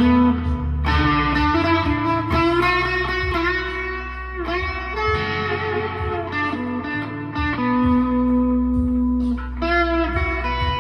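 Chapman ML1 Pro Hybrid electric guitar playing a slow single-note melody with sustained notes and a few string bends, in a clean tone with delay and reverb.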